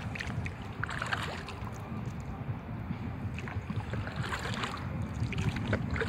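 Water lapping and dripping against an inflatable kayak's hull, a few small splashes scattered through, over a steady low rumble of wind on the microphone.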